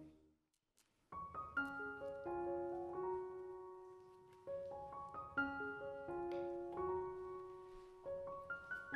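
Background music: a gentle piano piece that starts about a second in, after a brief near-silence.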